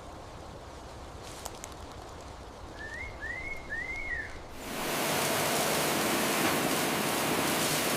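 Low rumbling ambience with three short chirps, then a loud steady hiss that comes in suddenly about halfway through and holds.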